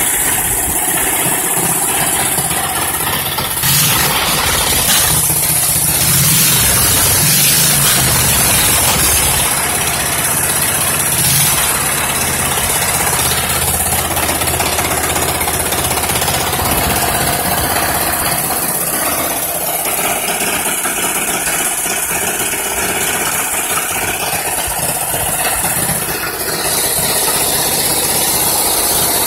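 Freshly rebuilt 21 hp Briggs & Stratton V-twin engine running, its speed changing a few seconds in, then running steadily.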